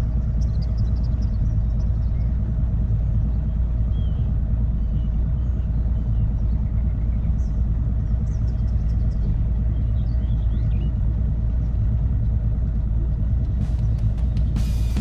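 Boat outboard motor idling with a steady low rumble, small birds chirping faintly over it. A few sharp clicks come near the end.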